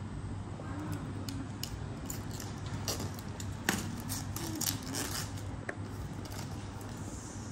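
A utility knife slicing and scraping the plastic shrink wrap on a small cardboard box, with scattered light clicks and crackles as the film is cut and pulled loose.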